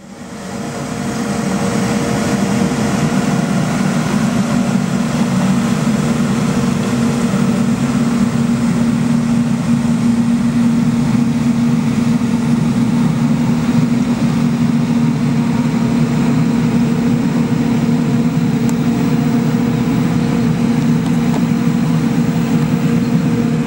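Scania P94G 310 street-sweeper truck running steadily while sweeping: its six-cylinder diesel and sweeping gear give a loud, even drone. The sound rises in over the first second or so.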